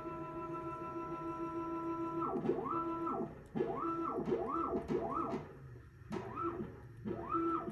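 ProLIGHT 1000 CNC mill's stepper motors driving the axes: each move ramps up in pitch, holds a steady whine, then ramps back down. There is one long move of about two seconds, then a run of about six short jogs. The motors are running under the new stepper drivers and Mach3 controller.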